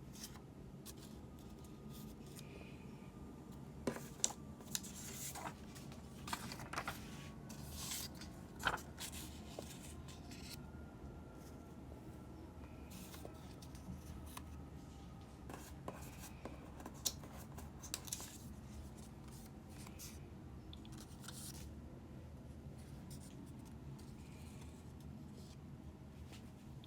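Scissors cutting paper, with sharp snips coming in scattered clusters about four to nine seconds in and again around sixteen to nineteen seconds.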